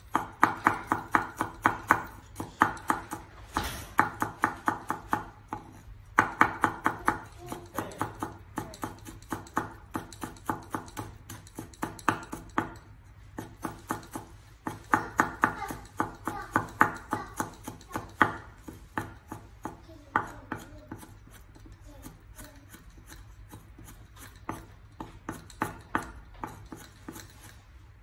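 Cleaver mincing garlic on a wooden cutting board: fast, even knocks of the blade on the wood, about six a second, in runs of a few seconds with short pauses, and lighter in the last third.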